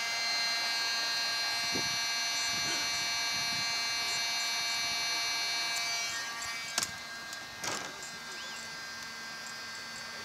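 Heat gun running with a steady buzzing whine from its fan while it melts a plastic filler rod. About six seconds in the sound fades and drops away, followed by two sharp clicks.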